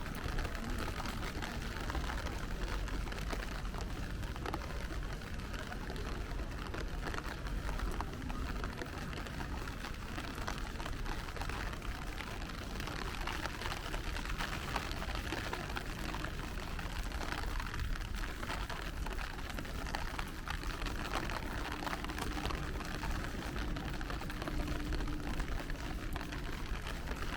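Steady rain falling on a city street, with a low rumble of traffic underneath. A faint steady hum comes in over the last few seconds.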